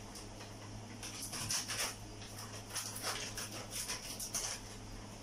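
Lidded pot simmering on a gas stove: soft, irregular bubbling and crackling from under the lid, over a steady low hum.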